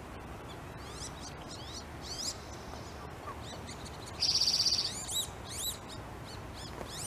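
Wood ducks calling: short, thin, high whistles that rise and fall, repeated every second or so. About four seconds in there is a rapid high trill, the loudest sound here.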